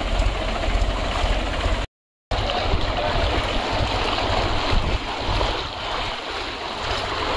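Mahindra tractor's diesel engine running as it wades through floodwater, with water rushing and sloshing around it. A short gap of silence about two seconds in.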